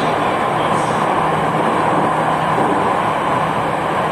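Steady running noise inside an MRT Jakarta electric metro train car under way: an even rush of wheels on rail and running gear, with a faint low hum underneath.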